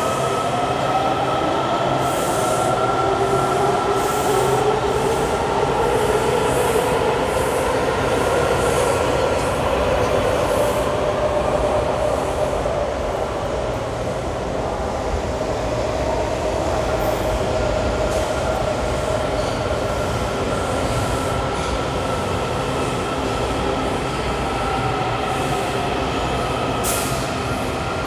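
Washington Metro subway trains moving in the underground station: a steady rumble with whining tones that glide slowly up and down in pitch, and a few faint clicks.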